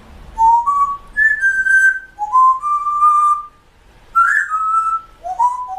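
A whistled tune: a run of clear single notes, some short and some held, sliding from one pitch to the next, with a short break a little past halfway.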